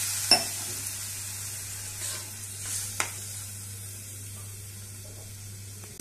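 Water sizzling and hissing in a hot iron kadai over fried mahua fruit and masala, just after it was poured in, the hiss slowly dying away. Two sharp clinks of the spatula against the pan, about a third of a second in and about three seconds in.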